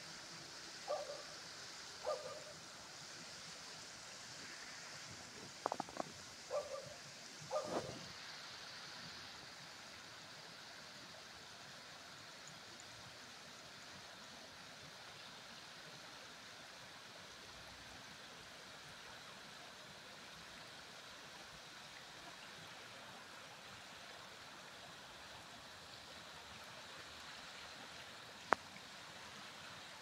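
Shallow water running and trickling down a flight of stone steps in small cascades, a steady hiss. A few short mallard quacks come in the first eight seconds, and there is one sharp click near the end.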